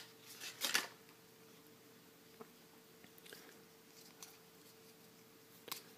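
Paper and packaging being handled: brief faint rustling in the first second, then mostly quiet with a few faint small ticks as fingers untwist a twist tie from a small plastic part.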